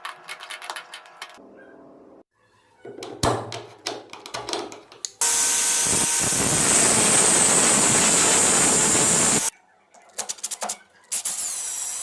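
Woodworking tool sounds in quick cuts: a run of knocks and clicks, then a loud, steady, noisy power-tool whirr for about four seconds that stops abruptly. Near the end a power drill spins up with a rising whine.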